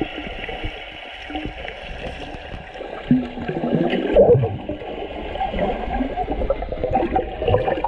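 Underwater sound picked up by an action camera: gurgling, bubbling water and muffled wavering sounds as swimmers dive around it, loudest about four seconds in.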